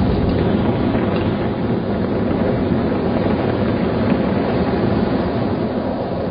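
Steady, rumbling rush of wind buffeting the microphone.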